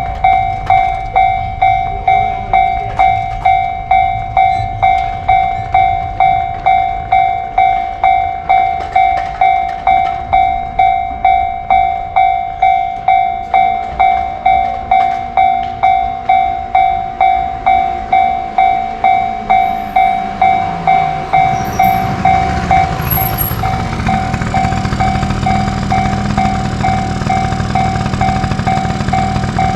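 Japanese railroad crossing bell ringing its steady "kan-kan", about two strikes a second. About two-thirds of the way in, the rumble of a passing train builds up under the bell.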